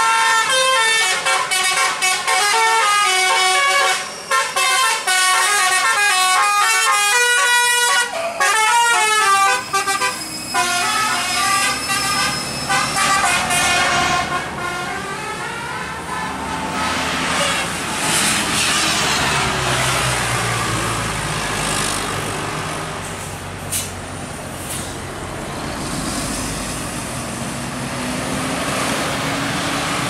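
Tour bus telolet horn, a multi-note musical horn, playing a quick tune of changing notes through roughly the first half. Then a bus engine passes close by as a steady rumbling noise.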